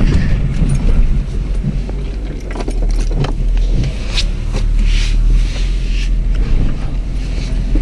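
Inside the cabin of a moving 2002 Chrysler Sebring: the rebuilt 2.7 V6 runs under a steady low rumble from engine and road, with no rod knock now that it has been rebuilt. A few scattered short clicks sound over it.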